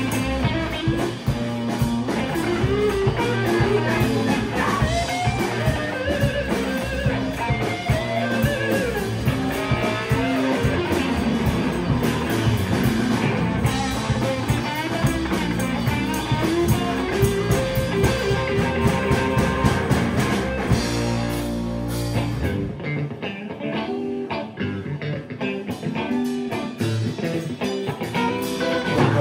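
Live rock band playing loud, with electric guitars over drums and a shaken tambourine. About 22 seconds in, the drums drop out for a few seconds and the guitar carries on with little behind it. The full band comes back in near the end.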